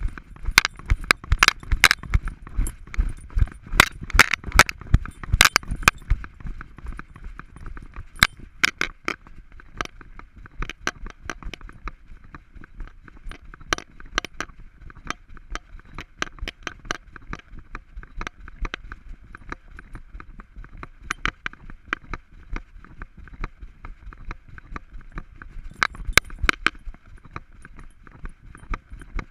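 Knocks and rattles of a GoPro camera strapped to an Alaskan Malamute's back harness, jolted with each step as the dog walks. They come thick and fast for the first six seconds or so, then sparser, with another quick cluster near the end.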